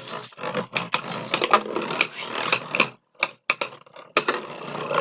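Two spinning Beyblade Burst tops clashing and rattling against each other and the plastic stadium wall: a rapid, irregular run of sharp clicks and clacks, with a short break about three seconds in.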